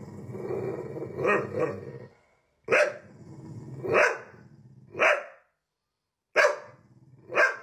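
A dog vocalizing at the camera: one drawn-out call lasting about two seconds, then five short, loud barks roughly a second apart.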